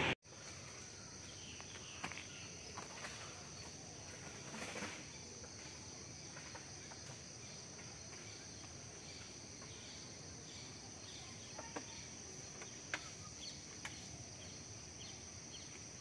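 Steady, high-pitched insect trilling, with a few short chirps scattered through it.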